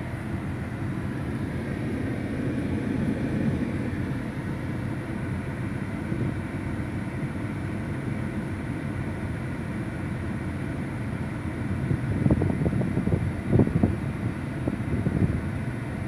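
Steady low rumble of a waiting car heard inside its cabin, its engine idling. About three-quarters of the way in, irregular bursts of low buffeting on the microphone come and go.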